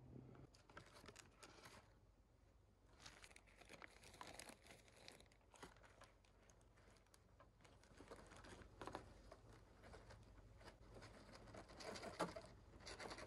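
Faint crinkling of a plastic bag and rustle of cardboard as powdery chimney creosote is poured into the bag, starting about three seconds in.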